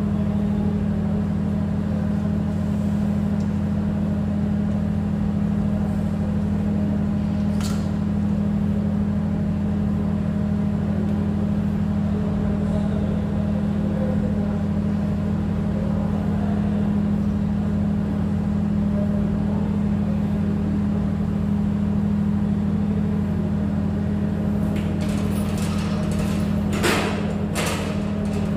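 A steady, unchanging low machine hum, with one sharp click about a third of the way in and a few more clicks and taps near the end as a brass fitting is handled.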